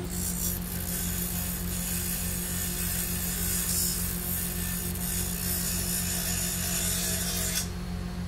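Bench grinder's soft stone wheel spinning at 3600 RPM, grinding the ends of stainless steel screws: a steady hiss of metal on stone over the motor's hum. The grinding stops about seven and a half seconds in while the motor keeps humming.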